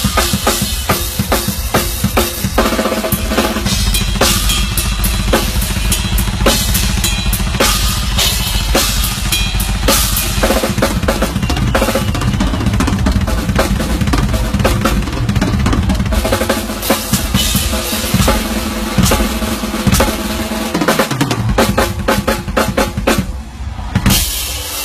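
Drum kit solo played fast: dense snare strokes and rolls over rapid, near-constant bass drum hits.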